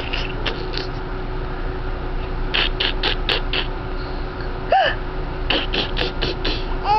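Baby making short breathy gasps in two quick runs, with a brief high coo about five seconds in, over a steady low hum.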